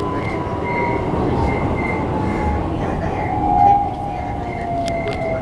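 Toyo IGBT-VVVF inverter and traction motors of a Keikyu New 1000 series train whining, heard inside the car over wheel-on-rail rumble. The whine falls slowly in pitch as the train slows, with a brief swell about three and a half seconds in.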